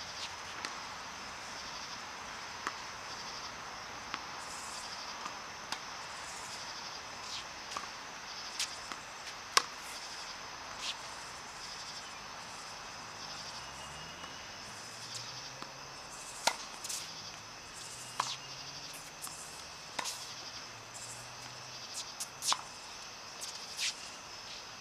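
Tennis balls being hit back and forth with rackets: sharp single pops at irregular intervals, mostly one to two seconds apart, the loudest about a third of the way in and again around two-thirds. A steady high-pitched insect drone runs underneath.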